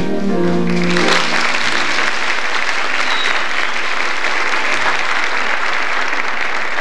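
The last held chord of the song's music ends about a second in, and audience applause breaks out and carries on steadily.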